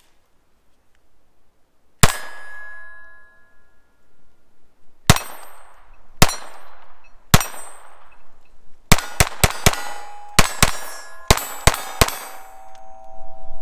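Taurus TX22 .22 LR pistol firing at steel targets that ring after hits. First come four shots a second or more apart, then a quicker string of about ten.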